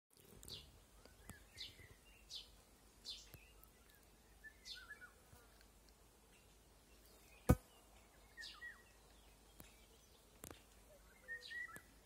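Small songbirds chirping and twittering in the trees: short high chirps every second or so, some with quick trills. A single sharp click about seven and a half seconds in is the loudest sound.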